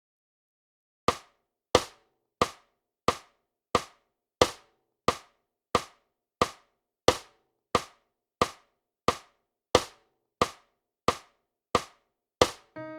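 Metronome clicking a steady beat, about three clicks every two seconds, all the same strength, after a second of silence: a count-in ahead of the music playback. Pitched music starts right at the end.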